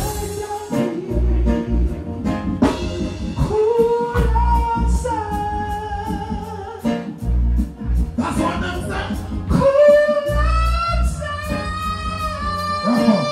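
A male singer singing live into a microphone over loud backing music with heavy bass and a steady drum beat, through a stage sound system.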